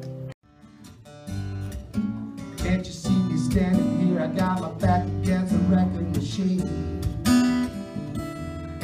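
Solo acoustic guitar, picked and strummed chords in a repeating pattern with no singing. It starts about half a second in, quietly at first, and fills out after about a second; just before that, a ringing chord cuts off abruptly.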